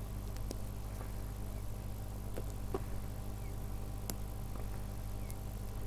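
A few faint clicks and soft puffs as a calabash pipe is drawn on while a lighter flame is held to the bowl to relight it, over a steady low hum.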